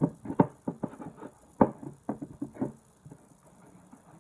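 Fluffy slime being squeezed and pulled up from a bowl by hand: a quick, irregular run of wet squelches and pops that goes quieter about three seconds in. The slime is still sticky and clinging to the bowl.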